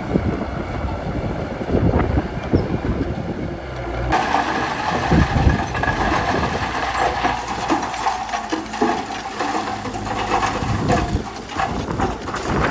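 D30H crawler bulldozer at work: its diesel engine runs under load with the clanking and rattling of its tracks and blade. About four seconds in the sound turns abruptly brighter and more rattling.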